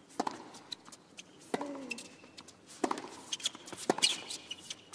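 Tennis rally on a hard court: four racket strikes on the ball about every second and a quarter, the last the loudest. One strike about one and a half seconds in comes with a player's grunt that drops in pitch.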